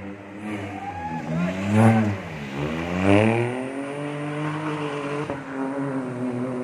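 Rally car's engine revving hard through a hairpin. The note climbs to a loud peak about two seconds in, drops sharply, climbs again to a second peak a second later, then holds a steadier, slowly falling note as the car pulls away.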